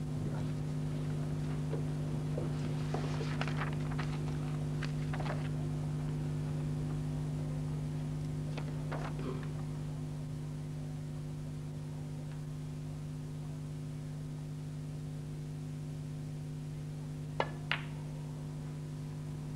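A steady electrical hum from the old broadcast sound, with a few faint brief noises. Near the end come two sharp clicks close together: a snooker cue tip striking the cue ball, then the cue ball hitting a red.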